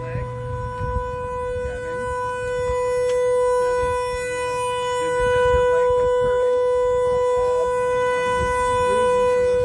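A crashed car's horn stuck on, blaring one steady, unbroken tone, with rustling and handling noise underneath.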